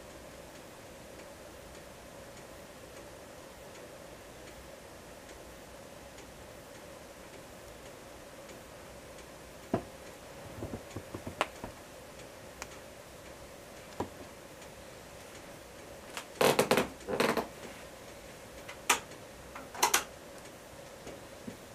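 Fire in an Invicta Siam wood-burning stove: quiet for the first ten seconds or so, then sparse sharp crackles and pops, the loudest a quick cluster about two-thirds of the way through, over a faint steady hum.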